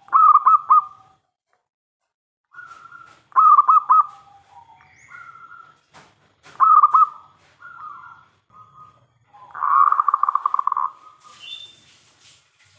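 Zebra dove (perkutut) cooing. Loud rolling coo phrases come about every three seconds, with fainter coos between them, and a longer, fast-pulsed coo about ten seconds in.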